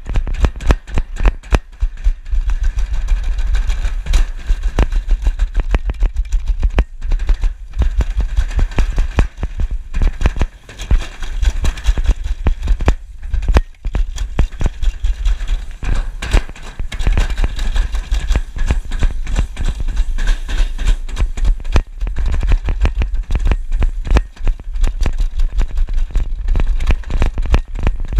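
Summer toboggan sled running fast down a steel trough: a continuous dense rattle and clatter of the sled against the metal, with a deep rumble underneath.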